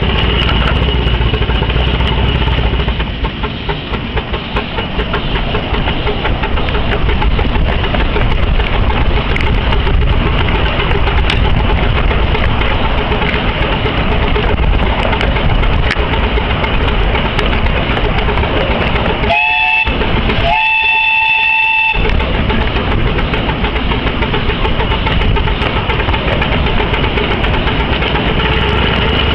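Miniature steam locomotive working hard up a gradient, its running noise steady. About two-thirds of the way through it gives two blasts on its steam whistle, a short rising one and then a longer one of about a second and a half.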